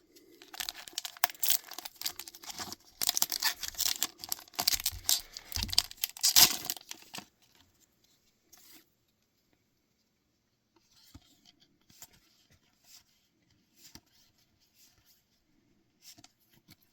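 A foil trading-card booster pack being torn open, the wrapper crinkling and crackling for about seven seconds. Then only faint rustles and soft ticks of cards being handled.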